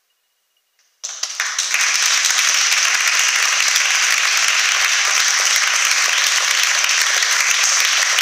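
Audience applauding, starting suddenly about a second in and then holding steady and full.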